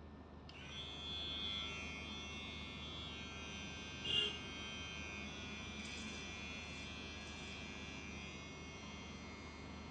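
Cordless electric hair trimmer switched on about half a second in and running steadily as it edges the hairline around the ear, with a brief louder moment about four seconds in.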